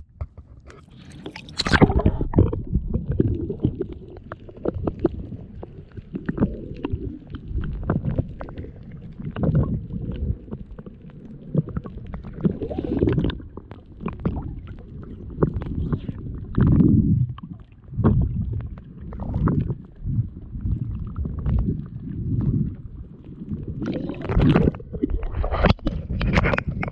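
Muffled sloshing and gurgling of seawater around a submerged action camera, in low surges every second or two. Brighter splashes come about two seconds in and again near the end as the camera breaks the surface.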